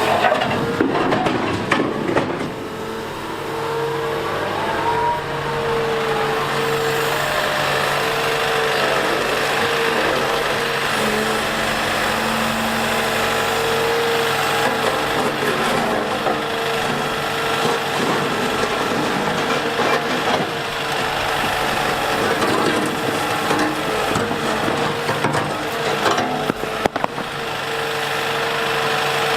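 Liebherr A 910 compact wheel excavator's diesel engine running steadily under working load, with a constant whine over it and a few knocks in the first couple of seconds.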